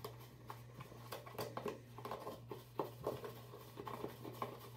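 A makeup brush stirring a thick flour-and-water paste in a plastic cup, scraping and tapping against the cup's side in quick, irregular clicks.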